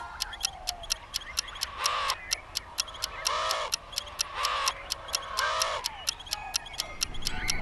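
Spooky soundtrack of a clock ticking about four times a second, with a crow cawing four times, about a second apart.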